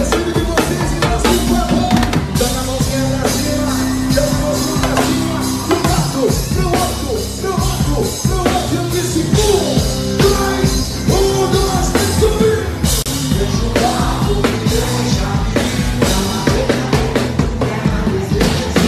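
Live pagode baiano band playing loud, with a drum kit and percussion keeping a steady beat.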